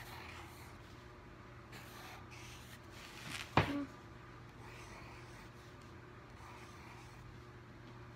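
Wooden pencil scratching over sketchbook paper in short, faint strokes, with one sharp tap about three and a half seconds in.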